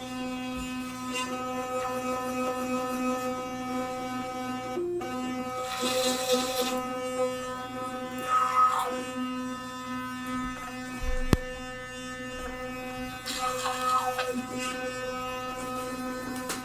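Electric toothbrush buzzing steadily while brushing teeth, with scrubbing noise swelling three times as the brush head works across the teeth. The buzz dips briefly about five seconds in, and there is a single sharp click about eleven seconds in.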